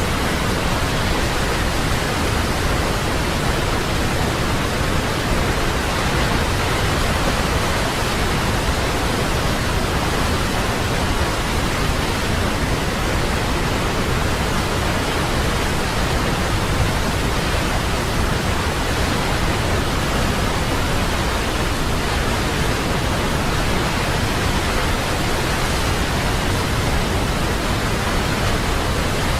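Waterfall: a steady rush of falling water, an even hiss spread from deep to high with no breaks or changes.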